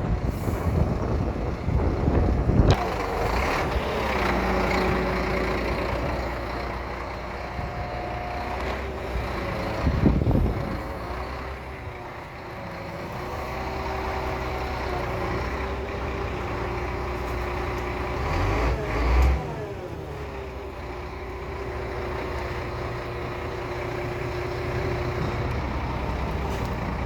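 Scania 114 340 truck running, with its Hiab 160-4 crane's hydraulics working: a steady hum and whine that shifts in pitch from time to time, broken by a few clunks, one near the start, one about ten seconds in and one near twenty seconds.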